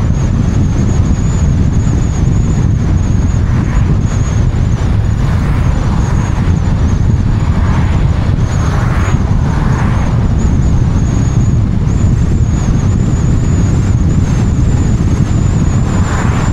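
Car driving along the road, with wind buffeting an action camera mounted outside it, plus tyre and road noise as a dense low rumble. There are a few brief swells of higher noise in the middle and near the end, and a faint high whine.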